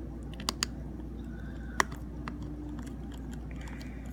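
Small, sharp clicks and ticks of a precision screwdriver on the tiny screws of an iPhone 5's LCD connector cover plate, a few scattered taps with the loudest about two seconds in, over a steady low hum.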